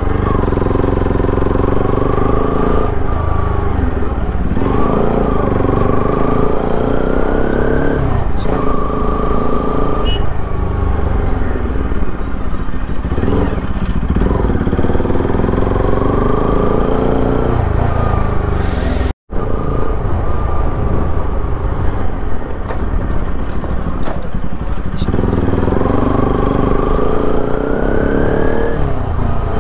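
Motorcycle engine running while riding, its pitch rising repeatedly as it accelerates and then breaking off every few seconds as the rider shifts or eases off. The sound drops out for an instant about two-thirds of the way through.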